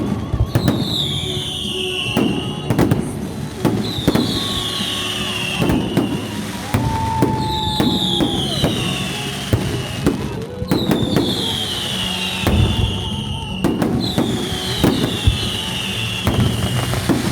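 Fireworks going off: a rapid, irregular string of sharp bangs and crackles.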